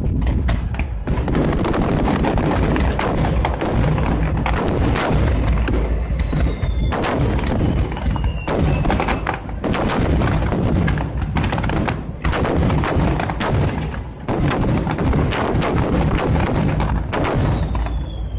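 Aerial fireworks bursting in a dense, continuous barrage of bangs over a steady deep rumble, with a few falling whistles among them.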